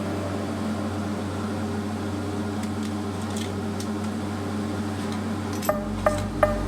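Steady electrical hum with a low buzz. About three-quarters of the way through, a rhythmic music beat of sharp, wood-block-like hits comes in, about three a second.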